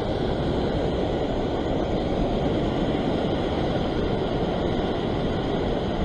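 Ocean surf breaking and washing over a rocky shore ledge, a steady sound of churning white water.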